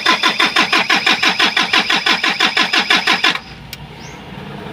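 Starter motor cranking an Isuzu 4JG2 four-cylinder diesel, an even chug of about six to seven compression pulses a second that stops abruptly about three and a half seconds in without the engine catching. The engine will not fire after its faulty fuel-cut solenoid was refitted without the shut-off valve.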